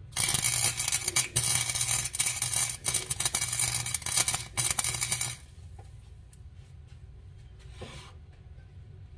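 Wire-feed welder arc crackling and sizzling with a low hum under it as a weld is run on a steel nut on threaded rod, cutting off sharply about five seconds in.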